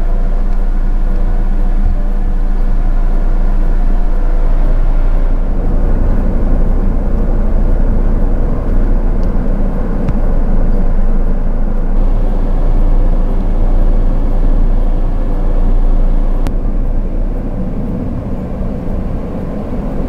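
A car driving, its steady engine and road rumble heard from inside the cabin.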